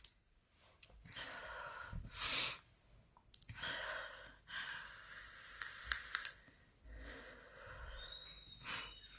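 A woman breathing heavily and wheezily between bouts of a persistent coughing fit, with a sharp burst about two seconds in and a smaller one near the end.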